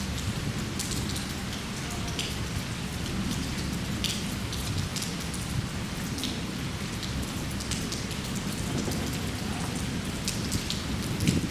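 Steady rain falling, with individual drops splashing and ticking close by every second or so over a constant low hiss.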